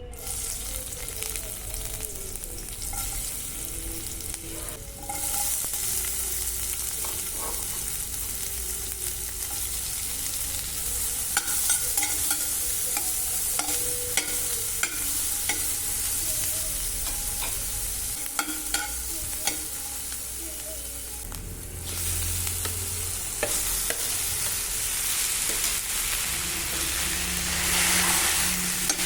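Food sizzling in hot oil in a pan while being stirred, with scattered sharp clicks and scrapes of a utensil against the pan. The sizzle dips briefly twice.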